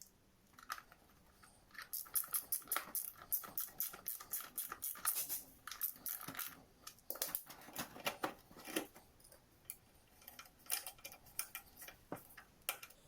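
Quick runs of light clicks and taps from hand tools and small metal parts being handled during scooter engine assembly, busiest for a few seconds in the middle.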